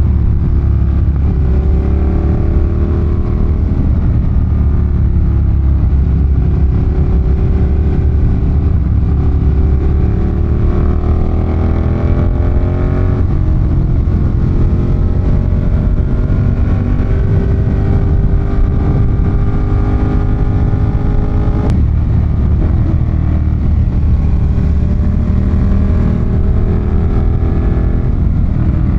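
Ducati Monster 1200's L-twin engine under way, its pitch climbing steadily as the bike accelerates and dropping sharply about 13 and 22 seconds in at a gear change or throttle closing, over steady wind and road rush.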